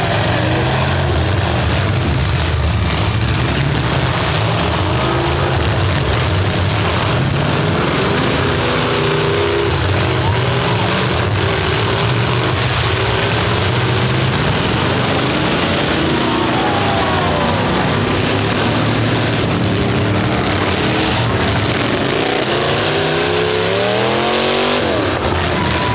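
V6 and V8 demolition derby car engines running loud and steady, revving up and down in several pitch glides. There is a stronger burst of rising revs near the end.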